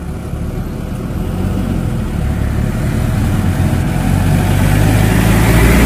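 Ashok Leyland goods truck's diesel engine running as the truck approaches, a steady low rumble growing steadily louder, with tyre noise on the road building near the end.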